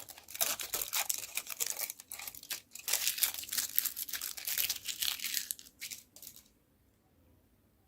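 Candy wrapper being crinkled and torn open by hand in quick crackling handfuls, stopping about six seconds in.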